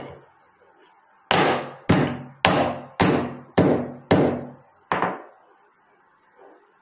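Dried licorice root (athimathuram) being pounded with a pestle in a stone mortar: seven sharp knocks, each ringing briefly, about every half second, starting about a second in and stopping about five seconds in.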